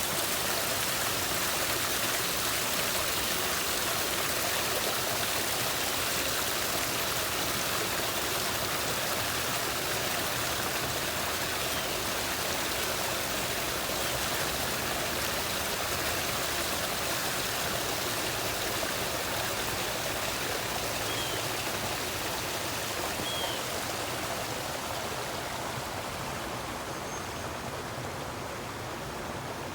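Steady rush of running water, an even splashing flow without a break, with a few faint short chirps in the second half.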